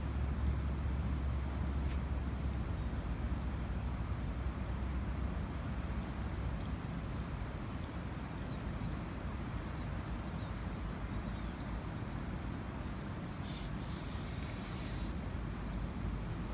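Outdoor background noise with a steady high insect trill throughout; a low rumble fades away about two seconds in, and a few faint high chirps come near the end.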